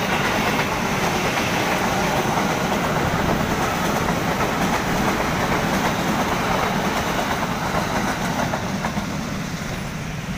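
JR 205 series electric commuter train passing close by at speed: a steady, loud rush of wheels on rails and car bodies going past, easing off slightly near the end.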